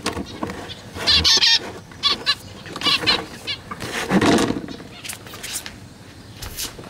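Pet finches calling in short, sharp chirps while a hand chases one inside a plastic cage to catch it, with scrabbling and knocks against the plastic. A louder, lower burst comes about four seconds in.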